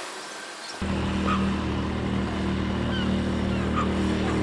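Small outboard motor on an inflatable dinghy, running steadily as the boat motors across the water. It cuts in abruptly about a second in, with a few faint short chirps over it.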